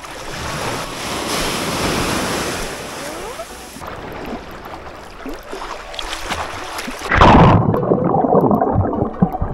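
Small sea waves washing in shallow water, with wind on the microphone. About seven seconds in the microphone goes under the water: the sound turns suddenly muffled and louder, with underwater splashing, bubbling and knocks.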